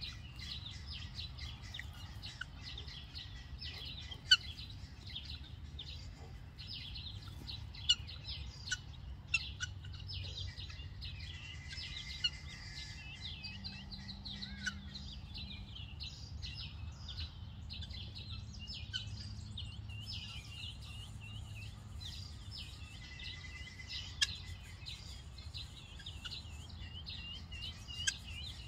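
Helmeted guineafowl keets peeping continuously in a dense stream of short, high chirps, with a few sharp clicks and a low background rumble.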